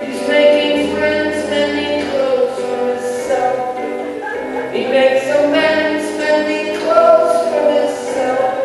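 Live song: a voice singing long held notes over acoustic guitar.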